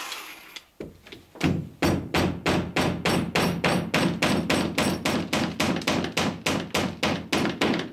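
A hammer driving a copper boat nail through the planking into a rib, about twenty quick blows at roughly three a second, heard from inside the hull where the rib is backed up by the weight of a cordless drill pressed against it.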